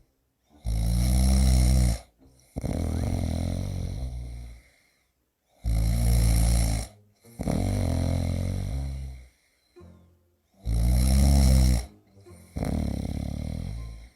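A person snoring loudly in three even cycles about five seconds apart. Each cycle is a deep buzzing snore of about a second and a half, then a longer, rougher second breath.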